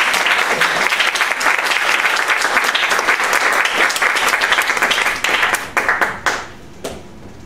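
Audience applauding, thinning out about six seconds in to a few last separate claps before it stops near the end.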